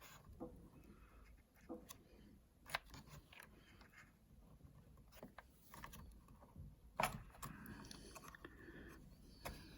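Faint, scattered clicks and small knocks of a Kingston RAM module being handled and seated in the iMac's memory slot. The sharpest click comes about seven seconds in.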